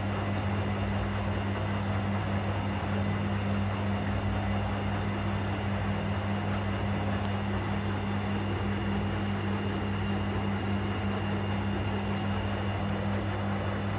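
Arielli AWM-7128N washing machine running on its DrumClean 90°C drum-cleaning cycle: a steady, even hum with a low drone and no knocks or changes.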